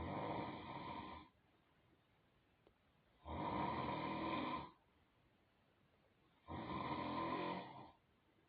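A person snoring loudly: three long, buzzing snores, each about a second long and coming about every three seconds, with quiet between them.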